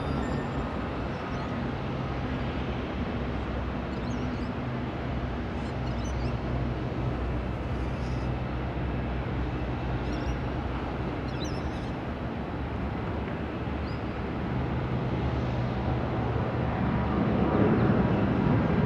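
Distant jet engine rumble from an Airbus A380-800 at the start of its take-off run. It is steady with a low hum, then grows louder near the end. Faint bird chirps are heard now and then.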